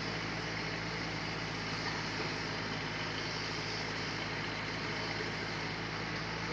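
Sawmill machinery running steadily: a constant low engine-like hum under an even hiss, with no change in load.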